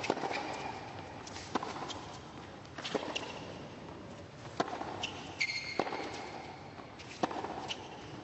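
Tennis rally: a ball struck back and forth by rackets, about six sharp hits roughly one every second and a half, with a few short shoe squeaks on the hard court over faint arena background noise.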